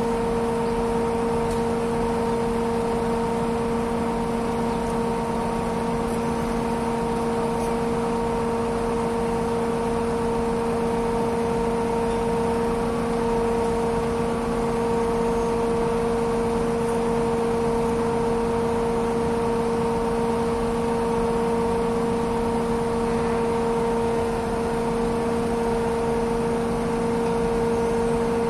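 Heavy-lift crawler crane's diesel engine and hydraulics running steadily while it holds a 52-ton pipe rack module on its hook: a constant drone with a strong steady hum.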